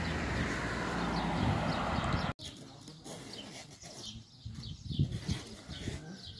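Wind noise rushing on the microphone, which cuts off abruptly about two seconds in; small birds chirping repeatedly in short high notes, clearest after the wind stops.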